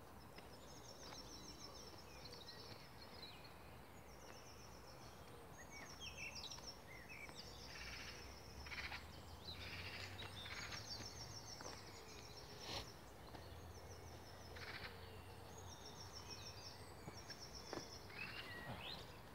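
Small songbirds singing: short high trills repeated every second or two, with other brief chirps between them, over a faint low hum.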